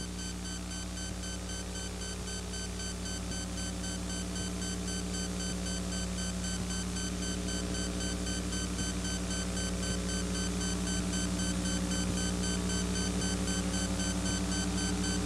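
Electronic synthesizer drone: several steady held tones with a strong low note and faint pulsing high tones above, slowly swelling in loudness.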